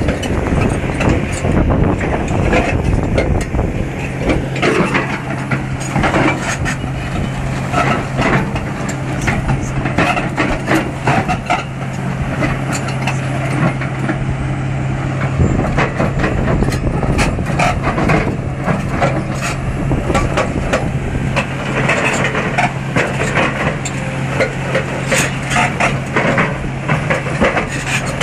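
Caterpillar 336D excavator working with a hydraulic rock breaker: its diesel engine runs under load, with a steady engine note setting in about four seconds in, over a constant stream of sharp knocks and cracks from the breaker and the rock.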